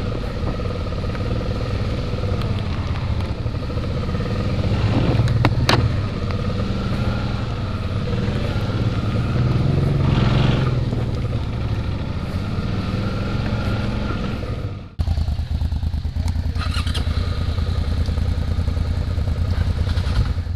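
Suzuki V-Strom's V-twin engine running on a rough trail, its note rising and falling with the throttle, with a sharp click about six seconds in. About fifteen seconds in the sound drops out for a moment and comes back as a steadier engine drone.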